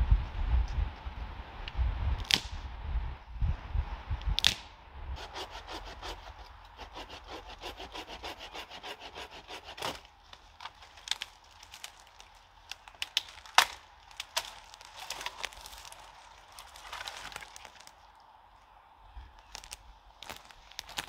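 Dry dead branches snapping and twigs crackling and rustling as deadwood is broken and pulled from brush, with a few sharp cracks about two, four and a half, and thirteen and a half seconds in.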